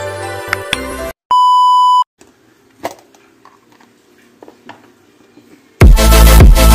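The last second of light intro music with typing-like clicks, then a single loud, steady electronic beep lasting under a second. Faint taps and clicks follow, with loud electronic dance music with heavy bass drums kicking in near the end.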